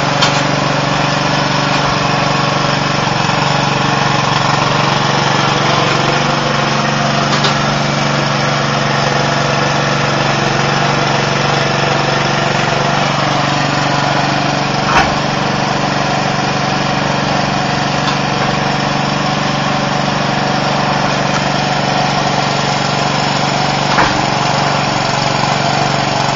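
Riding lawn mower's small engine running steadily at a constant speed, with a short sharp sound about halfway through and another near the end.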